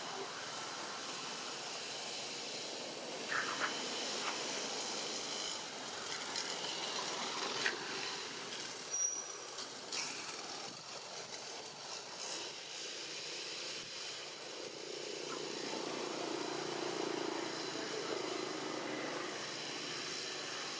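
Steady outdoor background hiss with a few faint clicks and no clear animal calls.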